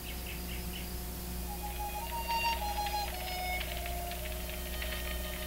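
Steady electrical hum on an old film soundtrack, with a few faint short high chirps near the start and faint wavering high tones in the middle.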